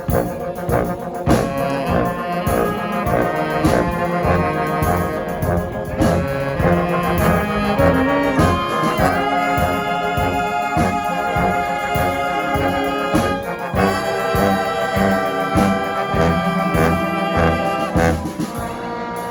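Live brass band playing, with trombones and trumpets sounding together over a steady low beat; the playing thins out near the end.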